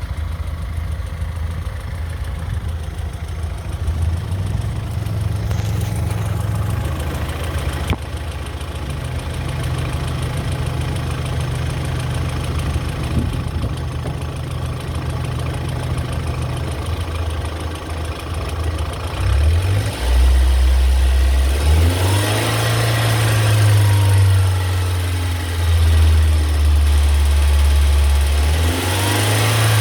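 BMW E46 318i four-cylinder engine running at idle with a ticking noise that is still there after new hydraulic lifters were fitted. About two-thirds of the way through, the engine sound grows louder and fuller.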